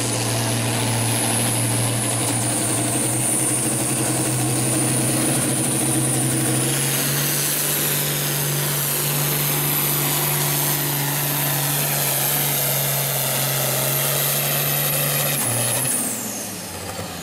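International 966 Turbo tractor's turbocharged diesel running hard under full load while pulling a sled, with a high whine over the engine note. The pitch steps up about seven seconds in, then falls away near the end as the engine throttles back.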